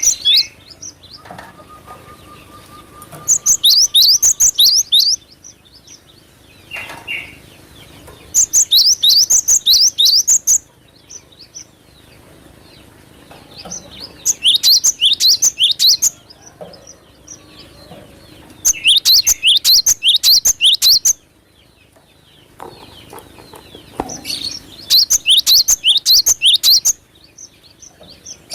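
Cinereous tit (gelatik batu) singing in loud bursts of rapid, high, downward-sweeping notes. Each burst lasts about two seconds, and there are five of them, about five seconds apart, with softer chirps in the gaps.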